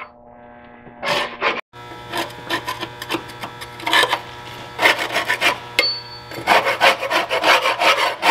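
A hand tool scraping caked grass and debris off the underside of a Scag V-Ride mower deck, in repeated irregular strokes.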